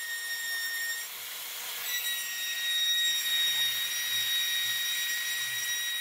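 Router spindle of a homemade CNC machine running with a steady high whine as its bit carves letters into a scrap board, with a hiss of cutting over it. The pitch steps slightly about one second in and again about two seconds in.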